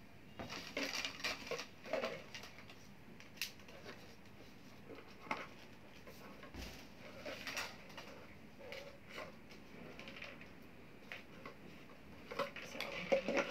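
Latex balloons and a plastic balloon-decorating strip being handled: faint, irregular rustling, rubbing and light taps, busier near the end.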